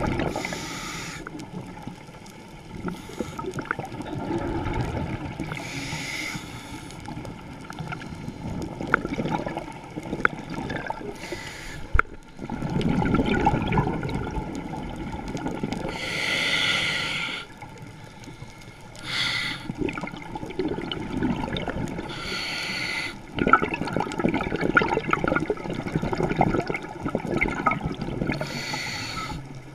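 Scuba regulator breathing heard underwater: a short hiss on each inhalation every three to six seconds, with a rumble of bubbles on each exhalation in between.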